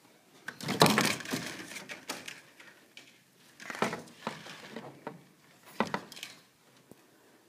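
Close rustling and rubbing noise right at a phone's microphone, in three bursts: a long loud one about a second in and two shorter ones near four and six seconds.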